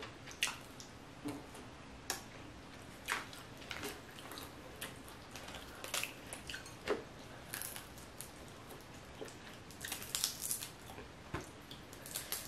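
Boiled crawfish being peeled by hand: shell cracking and squishing, heard as an irregular scatter of sharp clicks and small wet cracks.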